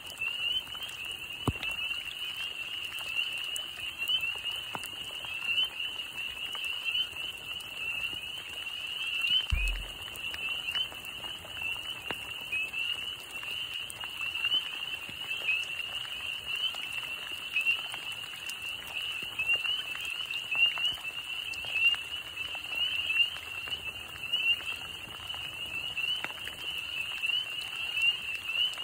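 Dense chorus of small frogs calling at a breeding pool: a continuous, high-pitched stream of many overlapping short rising calls.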